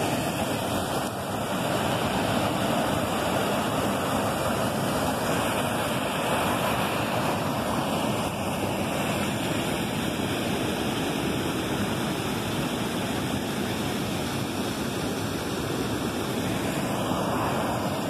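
Waterfall pouring steadily: a constant, even rush of falling water.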